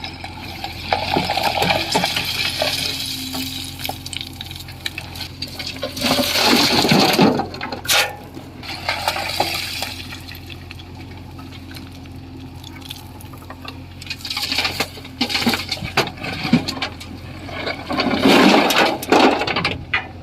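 Stones clattering and rattling as they pour from a JCB 3DX backhoe loader's bucket into a tractor's trailer, in several separate rushes, over the low steady running of the loader's diesel engine.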